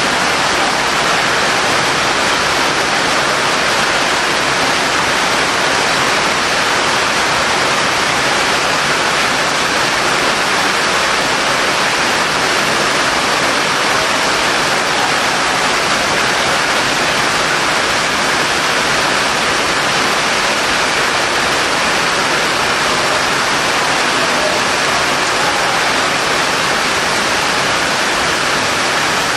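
Steady heavy rainfall, an even unbroken hiss with no letup.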